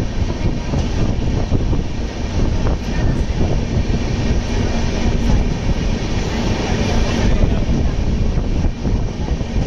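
Passenger train moving through a station: a steady, loud low noise of wheels and coaches, with a faint steady hum for a few seconds in the middle.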